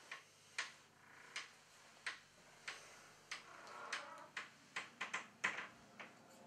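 A series of sharp, short ticks at uneven intervals, at first about one every two-thirds of a second, then coming faster around the fourth and fifth second.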